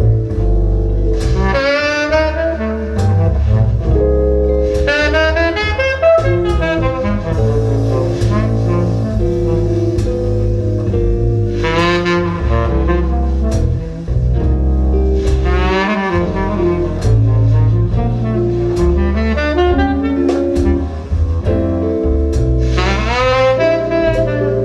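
Jazz with a saxophone melody over double bass, played back through Audio Note AN-J LX loudspeakers and heard in the room. The Audio Note CD Zero is running as a complete CD player, without the external DAC.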